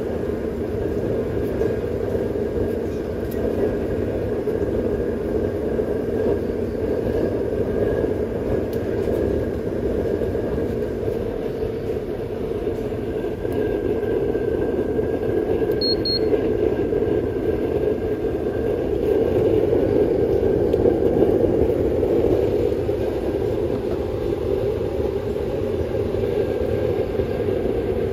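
Homemade used-oil burner stove running on forced air from its electric blower fan: a steady rushing roar of fan and burning flame. About halfway through, a handheld infrared thermometer gives two quick high beeps.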